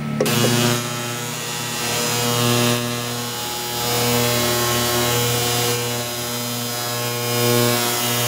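Benchtop ultrasonic cleaner switching on and running with nitro RC engine parts in soapy water: a loud, steady electric buzz with a hiss over it, swelling slightly in loudness a couple of times as the parts are cleaned.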